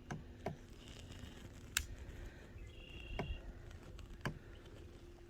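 About five faint, separate clicks and knocks, with two brief high-pitched tones between them, over a faint steady hum.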